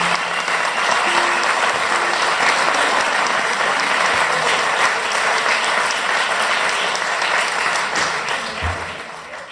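Audience applauding at the end of a live song, fading out near the end.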